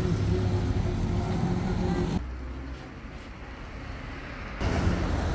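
Steady low engine hum of a vehicle on the road, which cuts off abruptly about two seconds in, leaving quieter outdoor noise, before louder noise returns near the end.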